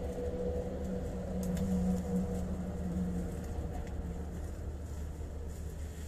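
Steady low engine or motor rumble, with a humming tone that fades away about three and a half seconds in, and a few faint clicks.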